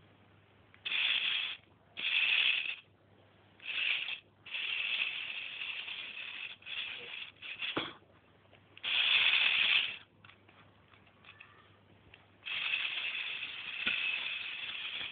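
A Lego 4x4's electric drive motor and plastic gearing running in short bursts, switched on and off about eight times, each run lasting from half a second to two seconds, with a longer run of about two and a half seconds near the end.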